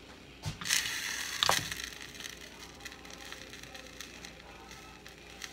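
Black pepper being ground from a plastic pepper grinder over the pan: a gritty ratcheting crunch, loudest about a second in, with a sharp knock partway through and quieter grinding ticks after.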